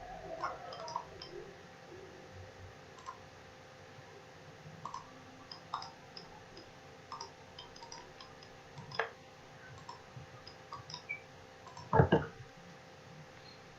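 Computer mouse clicking now and then over a faint steady hum. The loudest clicks come about nine seconds in and in a quick cluster near twelve seconds.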